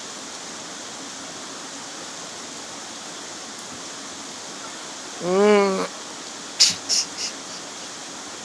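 Steady rush of the rain-swollen, flooded creek and falling rain. About five seconds in, a short drawn-out vocal call from a person, followed by a few sharp taps.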